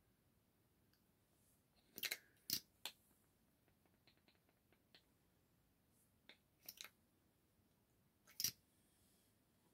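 Near silence broken by a few short, sharp clicks and taps: three about two seconds in, a pair past the middle and one more near the end, from a cosmetic stick applicator being handled and tapped against the skin.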